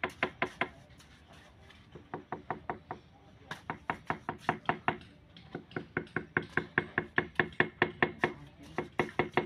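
The butt of a trowel's wooden handle tapping a ceramic tile down into fresh mortar: quick runs of sharp knocks, about five a second, with short pauses between the runs.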